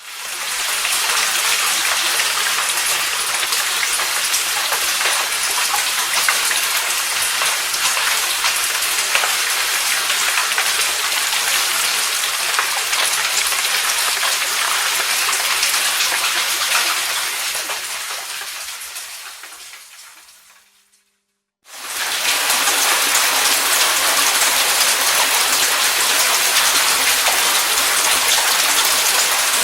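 Rain falling in a dense, steady patter. It fades out about two-thirds of the way through, and after a moment of silence a second rain recording starts abruptly.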